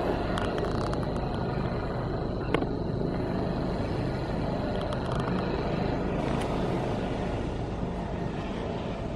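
Helicopter coming in to land: a steady rotor and engine drone with a thin high whine that stops about six seconds in. A single sharp click about two and a half seconds in.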